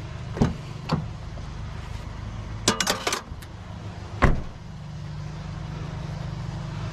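Vehicle engine idling steadily, with a few sharp knocks and a short clatter about three seconds in as things are handled and set down around the vehicle.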